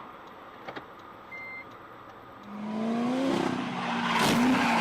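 A car engine speeds up with its pitch rising, starting about halfway in and growing louder, with a burst of tyre-like noise near the end. Before it there is a short beep over a quiet stretch.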